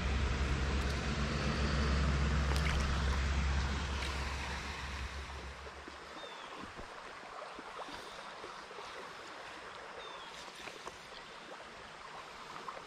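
Small creek's water flowing, a steady even rush. A low rumble lies under it for the first few seconds and fades out about five seconds in.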